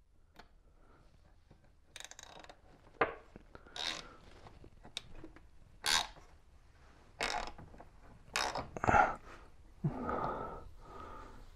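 A hand ratchet and Mortorq socket bit working at a stripped Phillips screw in wood: irregular metal clicks and scrapes, a dozen or so short ones spread through the time, as the bit grips and tries to break the screw loose.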